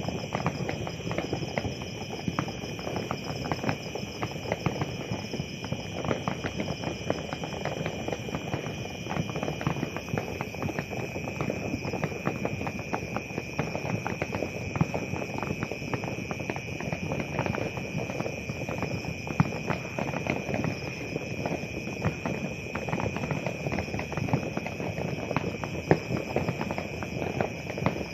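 Fireworks going off without pause: a dense, irregular crackle of many small pops and bangs, with a couple of louder bangs about two-thirds of the way in and near the end.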